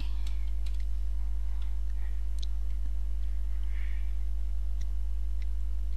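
Steady low electrical hum on the recording, with a few faint, scattered clicks of computer keyboard and mouse use.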